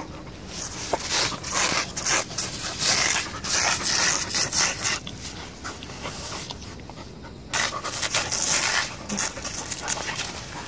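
Labrador retriever panting and snuffling hard with its nose in the sand, in two bouts with a pause of a couple of seconds between them.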